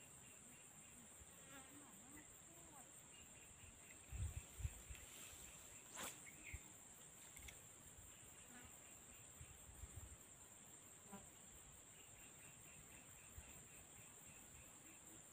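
A steady, high-pitched insect chorus. A few low thumps come about four to five seconds in and again near ten seconds, with a sharp click about six seconds in.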